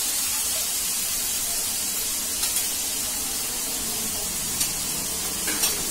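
Fried chicken manchurian balls and chopped vegetables sizzling steadily in a kadai as they are stirred, with soya sauce just added. A few short clicks come through in the second half.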